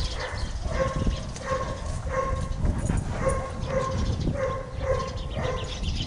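A dog whining in short, steady-pitched cries, over and over at a little under two a second, over a low rumble.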